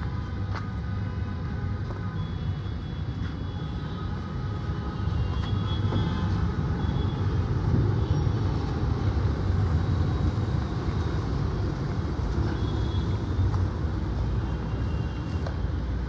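Diesel generator running with a steady low rumble, a little louder from about four seconds in.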